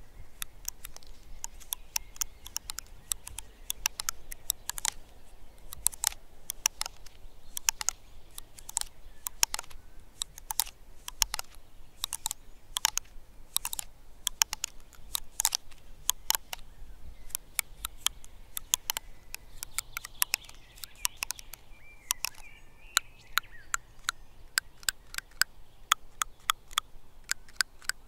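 Fingers flicking and bending the scales of a conifer cone held against a microphone: a long, irregular run of sharp, dry clicks, a few each second.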